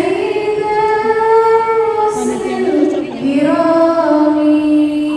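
A woman singing in Arabic, solo, in two long held phrases with slow bends in pitch; the second phrase begins about three seconds in.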